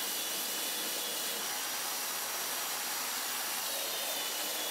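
Electric belt sander with a vacuum dust-extraction hose running steadily, sanding cured epoxy off a wooden hull: an even whirring hiss with faint steady whines.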